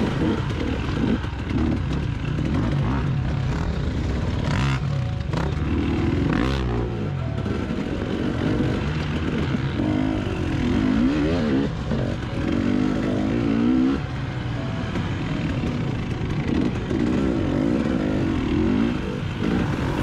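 Husqvarna TE125 enduro motorcycle engine, heard from on the bike, revving up and falling back again and again as it is ridden.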